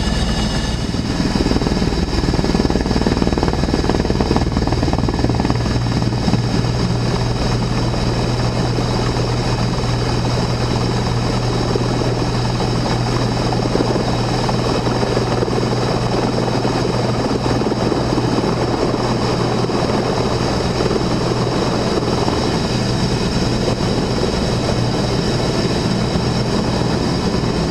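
Helicopter in flight: a steady, loud drone of engine and rotor that barely changes.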